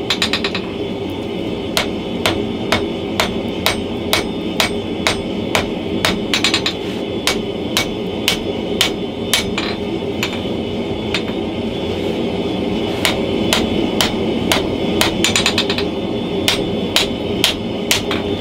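Hand hammer forging hot leaf-spring steel on a chain-wrapped anvil: sharp ringing blows about two a second, with a quick flurry of light taps three times, near the start, in the middle and near the end. Under the blows runs the steady roar of the forge.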